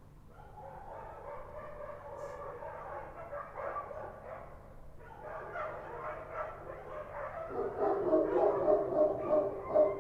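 Street dogs barking together, overlapping; the barking grows louder, turning into loud, rapid barks about three-quarters of the way in.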